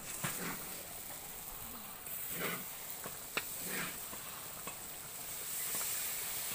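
Sliced onions and spices sizzling in hot oil in a large iron kadai, stirred with an iron ladle. The sizzle gets louder about two seconds in and again near the end.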